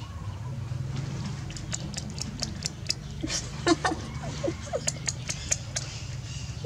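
Baby monkey giving a few short, high squeaks about halfway through, among irregular sharp clicks and smacks, over a steady low hum.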